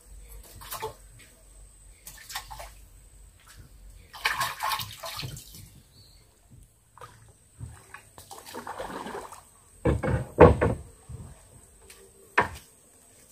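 Water sloshing and splashing in irregular bursts, with a few dull knocks near the end, the loudest about ten seconds in.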